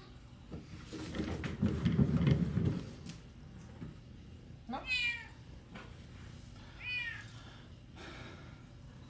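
Tabby kitten meowing twice: a meow that rises and falls about five seconds in, and a shorter one about two seconds later. Earlier, a low rumbling noise lasting about two seconds is the loudest sound.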